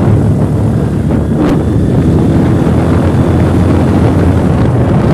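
Motorcycle running at steady road speed, its engine rumble mixed with heavy wind noise on the microphone. One brief click comes about a second and a half in.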